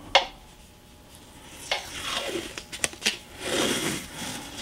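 Blue painter's tape being pulled and handled, with rustling tearing noise twice and a few light clicks on the work table.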